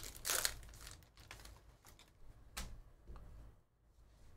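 Foil wrapper of a Panini Prizm football card pack crinkling as it is torn open, followed by a few soft clicks and rustles as the stack of cards is slid out and handled.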